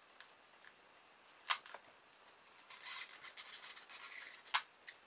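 Scratchy rubbing on a polystyrene foam pizza tray for about a second and a half, with a sharp click about a second and a half in and a louder one just before the end.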